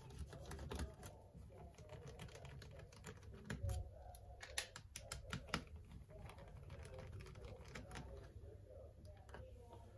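Faint, irregular small clicks and ticks of a screwdriver undoing the hinge screws of a laptop.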